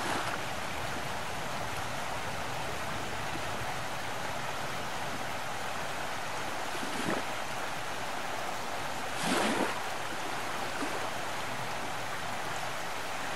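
Steady outdoor rushing noise, with a short swell about seven seconds in and a louder, longer one about nine seconds in.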